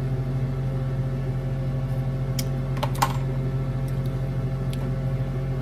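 Steady low appliance hum, with a few light clicks a little past the middle.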